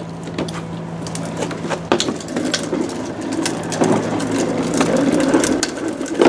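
Wheels of a rolling cooler rattling and grinding over concrete as it is pulled along, with many small clicks and knocks; the rattle grows louder about two-thirds of the way through.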